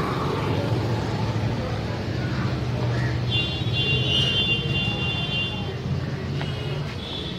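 Street traffic, with a motor scooter's engine running as it passes close by. A high, even ringing tone sounds for about two seconds in the middle.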